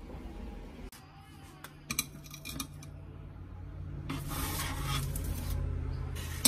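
Metal spatula scraping along a parchment-lined baking sheet as it slides under a baked scone and lifts it, with a few light metal clinks on the pan a couple of seconds earlier and a sharp click near the end.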